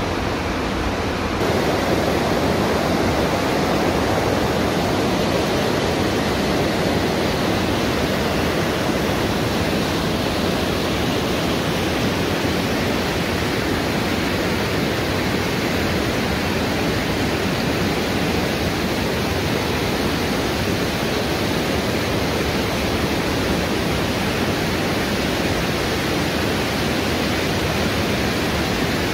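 Steady rush of a mountain river tumbling over rocky rapids and boulders in a gorge. It grows a little fuller about a second and a half in, then holds steady.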